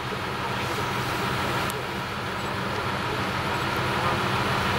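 ALn 663 diesel railcar idling at a standstill: a steady low engine hum, with one short click about two seconds in.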